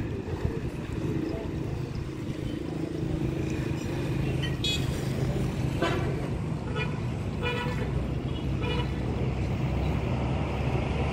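Road traffic running steadily, with several short vehicle horn toots in the middle stretch.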